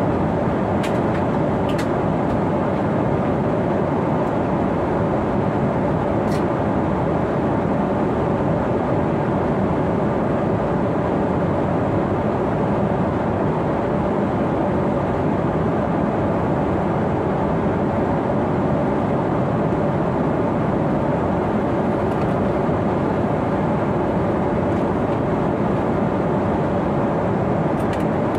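Steady roar of airflow and engines inside the cabin of a Boeing 777-300 airliner in cruise at about 34,000 feet, with a faint steady hum.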